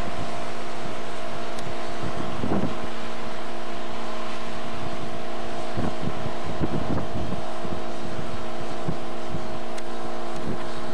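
A rail maintenance machine's engine running with a steady hum as it travels along the track, with gusts of wind buffeting the microphone.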